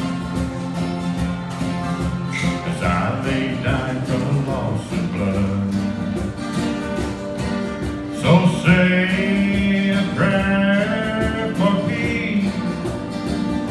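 Acoustic guitars playing a slow country song with a man singing over them.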